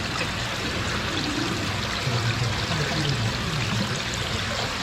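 Running water pouring steadily, with faint voices underneath.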